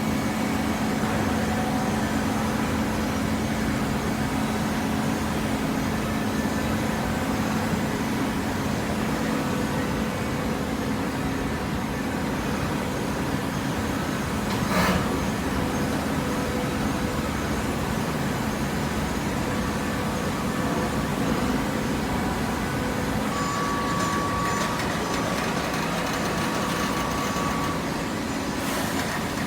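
Hydraulic baler running: a steady machine noise with a low hum, and a single knock about halfway through.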